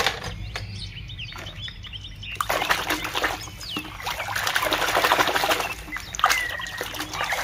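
A hand sloshing and splashing through a tub of thick red mud-like liquid. The dense wet splashing starts about two and a half seconds in and lasts about three seconds, after a few light clicks of plastic toys being handled.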